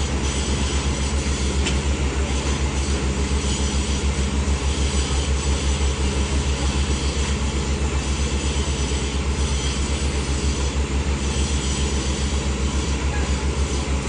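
Engine of a machine on a concrete construction site running steadily, with a low, even pulsing beat.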